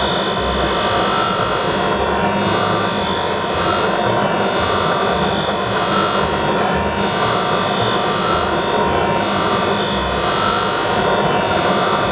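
Motor-driven sharpening wheel running steadily with the iron of a Japanese kanna plane held against it in a jig, giving a continuous grinding hiss. The hiss swells and eases about once a second as the blade is worked across the wheel.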